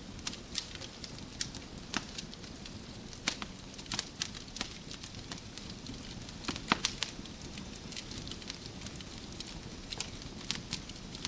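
Log fire in a fireplace crackling: a steady low rumble of flames with irregular sharp pops and snaps, a cluster of louder pops a little past the middle.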